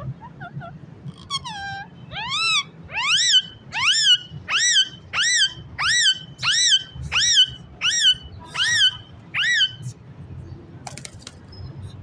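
Rose-ringed parakeet calling: a few soft chirps, then a rapid run of about a dozen loud calls, each rising and falling in pitch, about three every two seconds.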